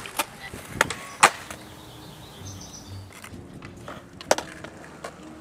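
Skateboards knocking on concrete: several sharp clacks of decks and wheels, the loudest just over a second in and another about four seconds in.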